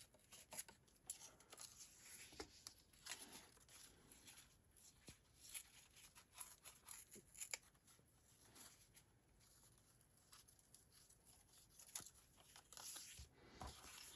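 Faint tearing and rustling of scrap cardstock being torn into a ragged border, in many short scattered crackles.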